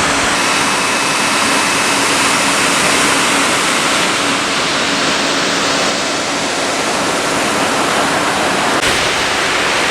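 Steady loud rush of water pouring over a dam, an even hiss with little low rumble.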